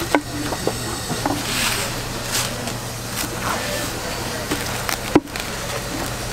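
Knife tapping on a wooden cutting board as boiled pig's trotters are cut on a foam tray, then plastic cling film rustling as it is pulled from the roll over the tray, with one sharp knock on the board about five seconds in. A steady low hum runs underneath.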